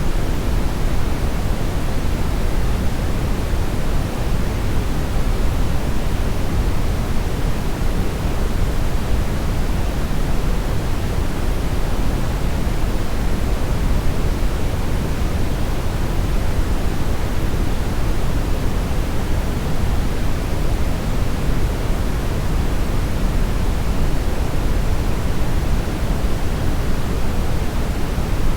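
Steady synthetic brownish noise: an even, unchanging hiss weighted toward the low end, with no events or changes.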